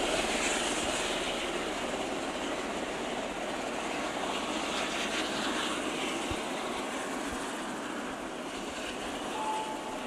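Helicopter running on the ground, a steady engine and rotor noise that eases off slightly after the first couple of seconds.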